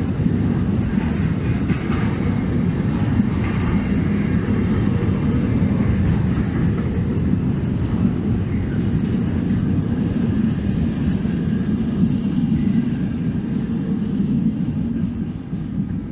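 Intermodal freight train rolling past, its wagons loaded with trailers and containers giving a steady rumble of wheels on track, easing off near the end.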